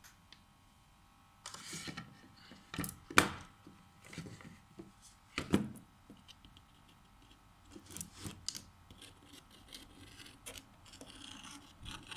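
Clicks, knocks and scraping from hands and small tools handling an iPhone and its parts on a workbench. Two sharp knocks stand out, about three seconds and five and a half seconds in, and there is light rubbing near the end.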